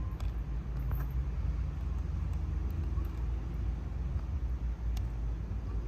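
Steady low rumble outdoors, with a few faint ticks.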